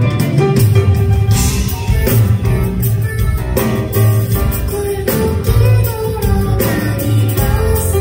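Live pop song: a woman singing over her own grand piano playing with a band behind her, a strong bass line and regular drum hits.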